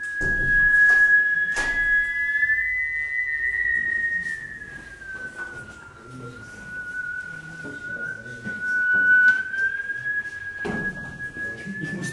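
Ondes Martenot playing one sustained, whistle-like high tone that slides slowly up and down in pitch, rising about three seconds in, dipping around six seconds and climbing again near the end. A few soft knocks fall under it, and there is some low movement noise near the end.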